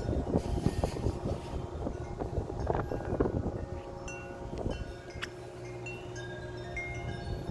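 Wind chimes ringing and clanging wildly in strong, gusty wind, with wind buffeting the microphone. The gusts are heaviest in the first three seconds or so, then ease, leaving the chime tones ringing out more clearly.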